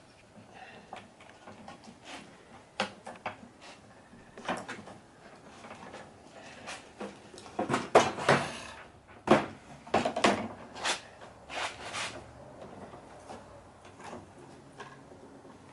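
Irregular clicks, knocks and scraping as a slide lock is worked into the handle groove of a retractable screen door housing. The sharpest knocks come in a busy cluster around the middle.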